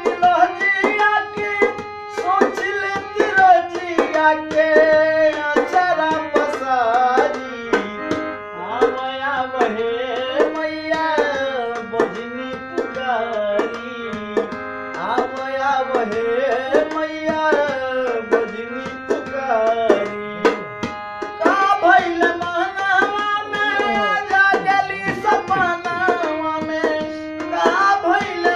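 Music: tabla strokes accompanying a melodic line in a Bhojpuri devotional song, playing without clear words.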